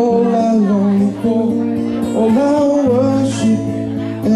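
A man singing to his own acoustic guitar accompaniment: a held, gliding vocal line over sustained guitar chords.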